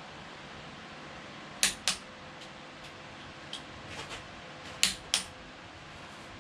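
Metal hand tools on an engine's rod bolts clicking: two pairs of sharp clicks, the first about a second and a half in and the second near five seconds, with a few lighter ticks between.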